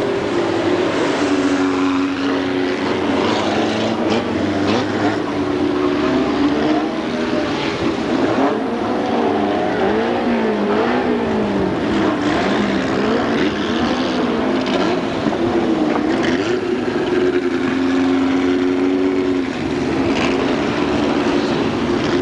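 Several racing stock car engines revving hard as the cars lap a bend, with overlapping engine notes that rise and fall as they lift off and accelerate, swinging most sharply about halfway through.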